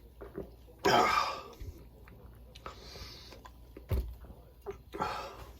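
A person's breath and mouth sounds while eating: a loud breathy exhale about a second in, softer breathing and chewing, and another exhale near the end. A single sharp knock comes at about four seconds.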